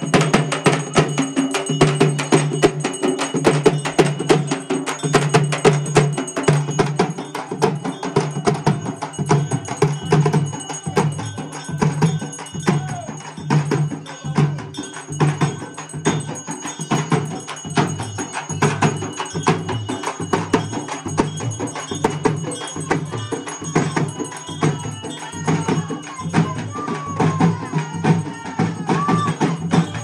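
Large Tamil frame drums (tapou) beaten with sticks in a fast, continuous beat, several players together.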